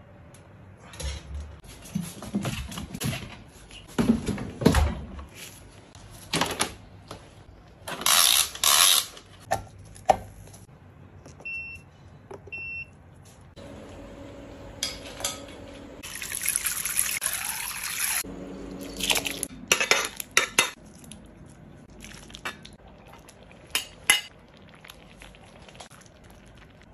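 Glazed clay casserole pot, its ceramic lid and bowls clinking and knocking as they are handled, with liquid poured and splashing into the pot. The longest stretch of liquid noise comes a little past the middle. Two short high beeps sound a little before the middle.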